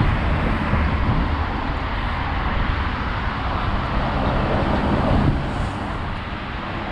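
City street traffic noise: a steady hum of road vehicles, with a low engine hum fading after the first second or so.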